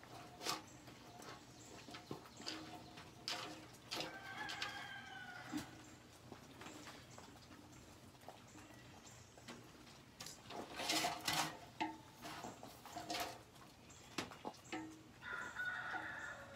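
Ratchet wrench clicking and metal clinks while a clamp is tightened on a new exhaust muffler, loudest in a run of clicks about halfway through. Bird calls sound twice in the background, about four seconds in and near the end.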